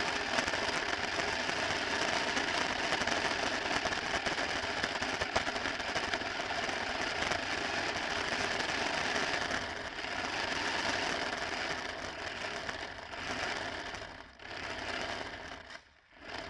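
Small RC car's motor and gears whirring while its tyres roll over rough asphalt, picked up by a camera mounted on the car. The noise is steady, then lets up and comes back several times in the last few seconds.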